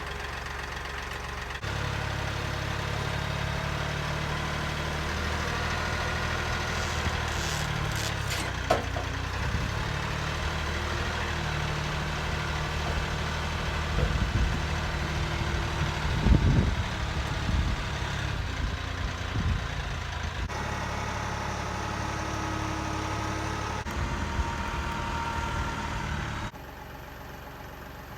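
Tractor engine idling steadily, with a few sharp knocks over it.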